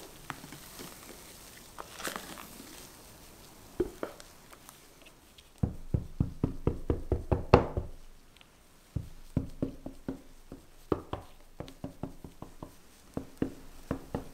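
Silicone spatula spreading thick meringue batter in a parchment-lined metal baking tray, knocking against the tray as it goes. There is a quick even run of knocks, about five or six a second, a little past the middle, and more irregular knocks after a short lull.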